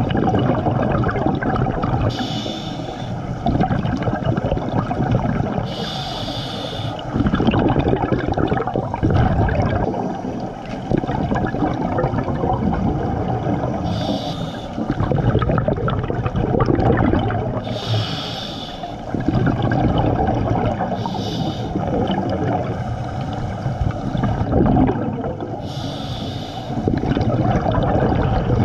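Scuba regulator breathing recorded underwater: a short hissing inhale every few seconds, with bubbling, gurgling exhaust bubbles in between.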